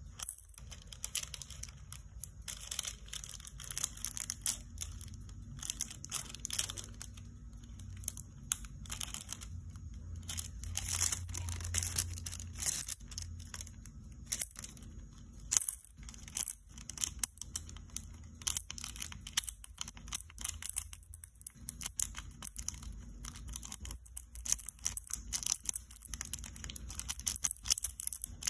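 Crinkling and crackling of a sheet of thin snakeskin-print nail transfer foil being handled and pressed onto a nail, in many small irregular crackles.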